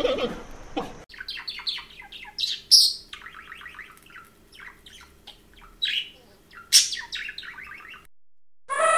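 Bird-like chirping: quick runs of short, high chirps with a few louder squeaks, starting about a second in, after the tail of a bleating animal call. A sustained musical tone comes in just before the end.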